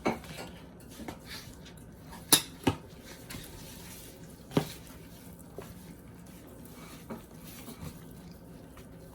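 A few scattered sharp clinks and knocks of kitchen utensils and containers during seasoning, the loudest two close together about two seconds in and another about four and a half seconds in, over a low steady background hum.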